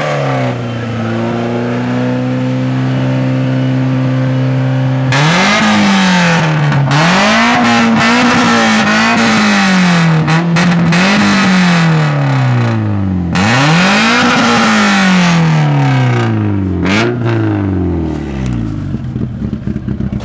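Toyota Celica engine through a loud exhaust, holding steady revs for about five seconds, then revved hard up and down again and again before dropping back near the end.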